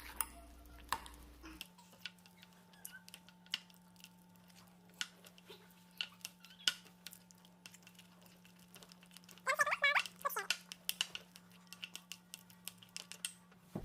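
Spoon clicking and scraping against a glass bowl as a thick cornstarch-and-glue clay mixture is stirred, in irregular short taps. A low steady hum sits underneath from shortly after the start.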